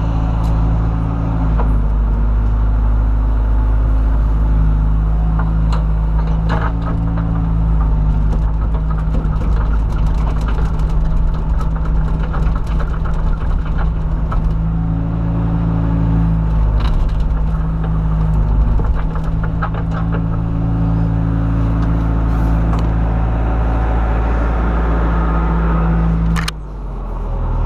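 Diesel engine of a John Deere 190E excavator running steadily, its pitch shifting up and down several times as the machine works, with scattered clanks and knocks. The sound drops briefly near the end.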